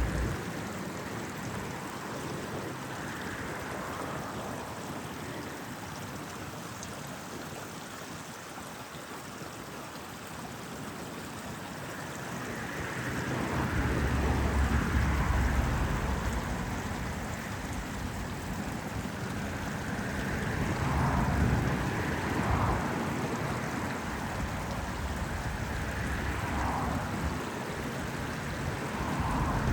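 Small stream running steadily over stones, with road traffic in the background; a low traffic rumble swells about halfway through and again near the end.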